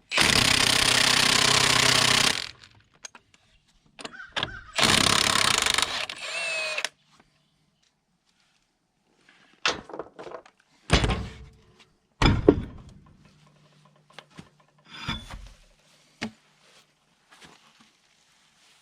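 Impact wrench running in two bursts of about two seconds each, spinning lug nuts off a truck's rear dual wheels, followed by several separate heavy clunks.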